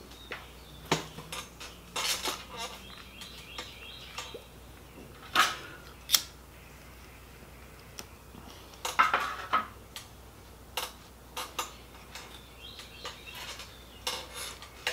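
Scattered light taps, clicks and clinks of small hard objects as a corncob pipe and its tamper are handled close to the microphone, with a few louder knocks about five and six seconds in and a quick cluster around nine seconds in.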